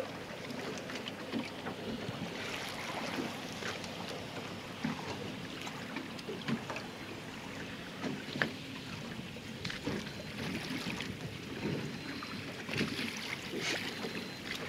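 Wind and water noise aboard a small fishing boat at sea, with scattered light knocks and clicks.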